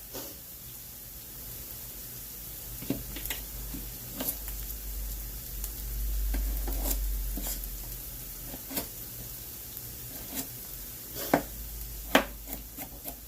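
Food sizzling in a pan on the stove as a steady hiss, with scattered sharp clicks and knocks over it.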